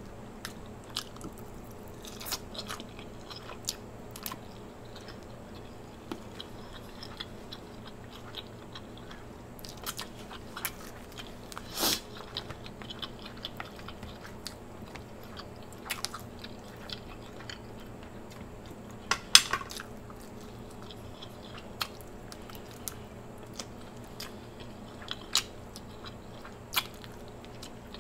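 Close-miked mukbang eating: wet chewing and biting of king crab and shrimp, with scattered sharp clicks and snaps as the shellfish meat is pulled apart by hand. The loudest snaps come about 12 and 19 seconds in.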